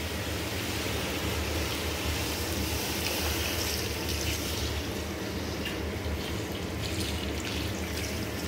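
Water poured in a steady stream from a plastic jug into an aluminium cooking pot, splashing into the fried chicken and tomato sauce inside.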